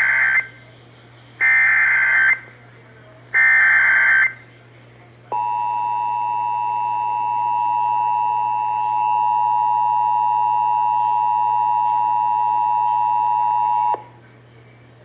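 Emergency Alert System tones: the end of one SAME header data burst and two more full bursts, each about a second long with a second's gap between. About five seconds in, the EAS two-tone attention signal (853 and 960 Hz) starts and holds steady for about nine seconds before cutting off suddenly. The sequence announces an emergency alert, here a severe thunderstorm warning.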